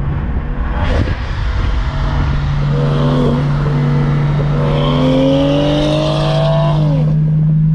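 Car engine running loudly with a steady low tone, its pitch rising slowly under acceleration for a couple of seconds, then dropping; it cuts off suddenly.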